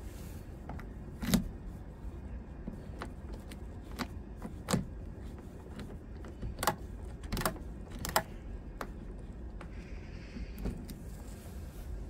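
A key being pushed into, turned in and drawn out of a Volkswagen Polo Mk4 door lock cylinder: a string of sharp metallic clicks and rattles at irregular intervals, the loudest about a second in. The key turns without working the lock, the sign of a broken lock cylinder whose internal cam has usually failed.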